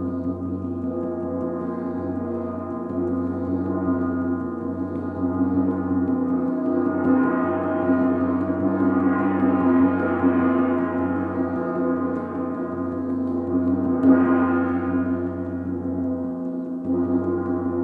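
Hand-held gong played with a soft felt-headed mallet: a sustained ringing drone of many overlapping tones that swells and brightens through the middle and flares once more about fourteen seconds in.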